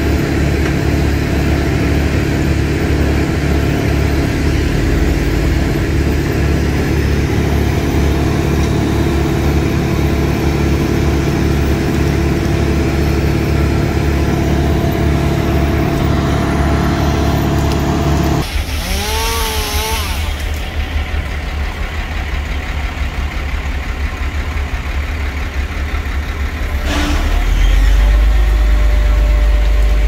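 Bucket truck's engine running steadily at raised speed, dropping off sharply about two-thirds of the way through, then picking up again near the end.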